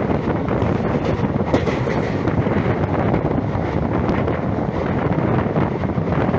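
Wind buffeting the microphone from the side of a moving passenger train, over the train's steady running noise.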